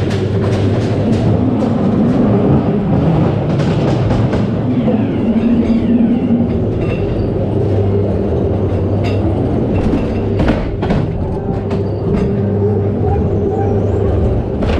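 Ghost train dark-ride car rolling along its track, a steady rumble broken by irregular sharp clacks from the wheels and track, with the ride's music playing over it.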